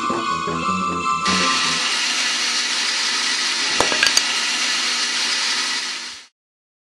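Music breaks off about a second in and is replaced by a loud, steady hissing noise with a few sharp crackles in the middle; the noise cuts off abruptly near the end.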